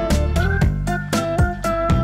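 Background music with a steady beat, bass and pitched melody notes.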